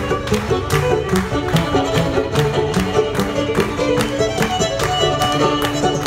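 Fiddle and clawhammer banjo playing a brisk old-time tune together, the bowed fiddle melody over the banjo's steady, evenly spaced plucked notes.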